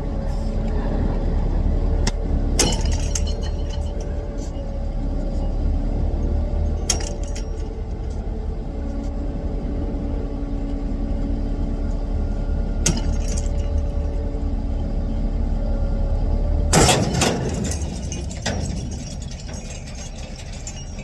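Heavy diesel engine running steadily at a low rumble, with a few sharp metallic clanks. About 17 seconds in there is one loud rattling knock, and the low rumble drops away after it.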